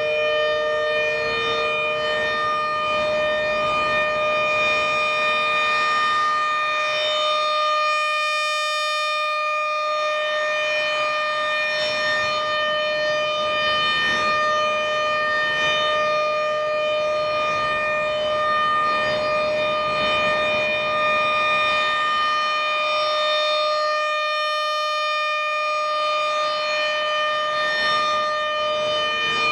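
ASC RM-130 rotating outdoor warning siren sounding the steady alert tone: one loud, unwavering pitch with many overtones. Its tone colour shifts briefly about every sixteen seconds as the rotating head sweeps past.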